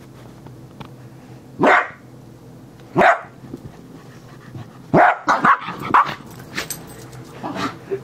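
A small dog barking during play: single barks about two and three seconds in, then a quick run of four or five barks around five to six seconds, and another one near the end.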